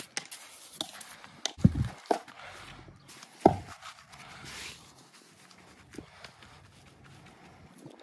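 Stonemasonry work: stones being handled and set on a wall, with scattered knocks and scrapes. There is a heavy thump about one and a half seconds in and a sharp knock about three and a half seconds in.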